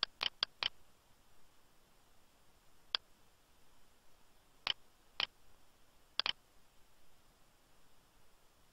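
Sharp clicks of a computer mouse and keyboard as a spreadsheet formula is entered: a quick run of four in the first second, then single clicks and close pairs every second or two, over faint room tone.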